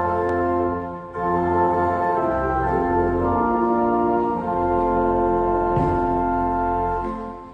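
Church pipe organ playing slow, sustained chords, with a short break about a second in; near the end it releases its final chord and the sound dies away in the room's reverberation.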